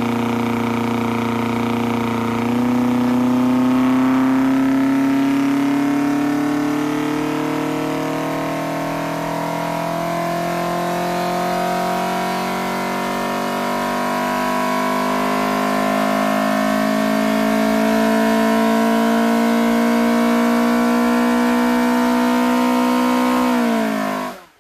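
Ford Pinto 2.1-litre four-cylinder race engine on twin Weber carburettors, exhausting through an Ashley three-piece manifold, running at full throttle under dyno load in a power run, its pitch climbing slowly as the revs rise. Near the end the revs fall away sharply as the throttle shuts.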